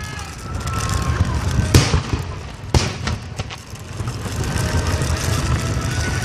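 Aerial fireworks shells bursting: a sharp bang about two seconds in, the loudest, another about a second later and a few softer pops, over a steady low rumble.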